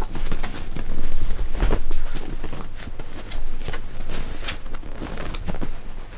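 Clothes rustling as they are pulled off and dropped onto a bed cover, with irregular rustles and soft knocks.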